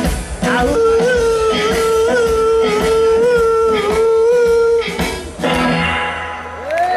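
Live blues band with electric guitar, harmonica, upright bass and drums bringing a song to its end: a long held, slightly wavering high note sounds over the band for about four seconds, then the band hits the final chord.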